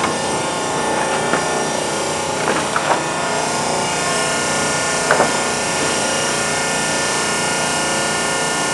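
Sandt hydraulic clicker press running under power: the steady hum of its electric motor and hydraulic pump. A few brief crinkles of clear plastic film sheet being laid over the cutting die come in about a second and a half in, near three seconds, and around five seconds.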